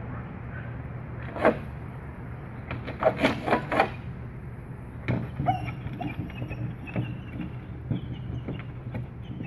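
Outdoor ambience: a steady low hum with scattered sharp clicks and knocks. The clicks come most thickly in a quick cluster about three seconds in.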